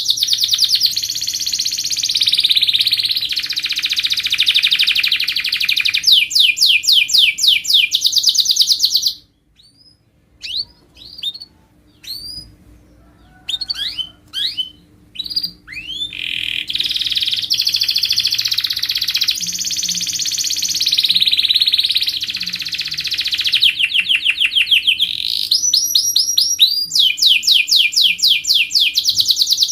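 Domestic canary singing in full song: long runs of fast repeated high trills and rolls. The song breaks off about nine seconds in, a few separate chirps follow, and the full song resumes.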